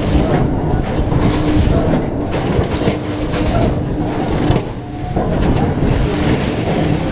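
Rumble and rushing noise of a Huss Top Spin ride in motion, heard from on board as the gondola swings and flips, with a steady hum that drops in and out.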